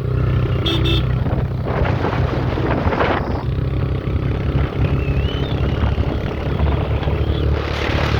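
A motor vehicle's engine running steadily, with rushing noise that swells a couple of times.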